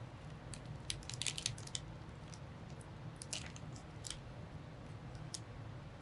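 Scattered small clicks and taps as a DDR4 RAM stick is handled and pushed into a motherboard memory slot: a quick flurry about a second in, then a few single clicks.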